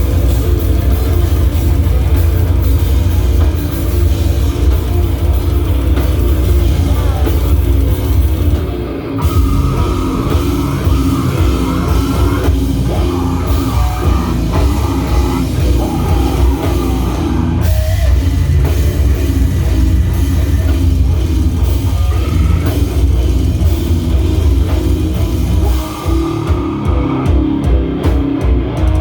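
Hardcore band playing live, loud: distorted electric guitar, bass and drum kit with a heavy low end. Near the end the playing turns choppy, in short stop-start hits.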